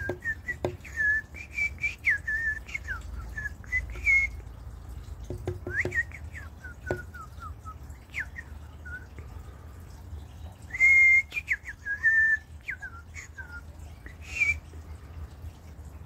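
A run of short whistled notes, mostly quick gliding chirps with uneven gaps, and one louder, longer held note about eleven seconds in. A few sharp taps fall among them.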